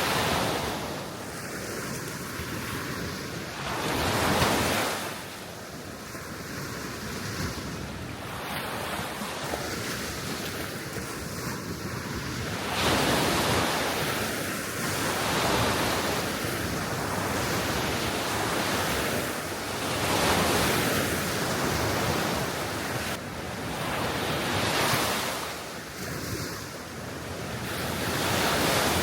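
Small waves breaking and washing on the Baltic Sea shore, swelling and fading every few seconds, with wind buffeting the microphone.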